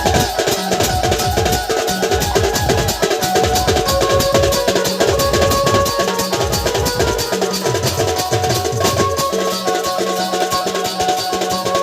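Dhumal band music: fast, dense drumming and jingling percussion under a held, steady melody line and a repeating bass line.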